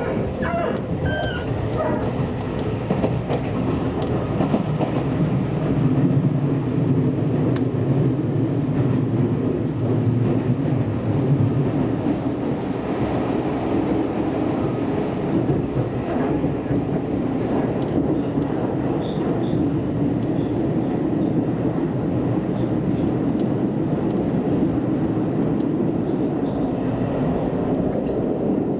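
Seibu Shinjuku Line electric commuter train running at speed: a steady rumble of wheels on rails heard from inside the carriage. It grows somewhat louder and deeper for several seconds near the first third.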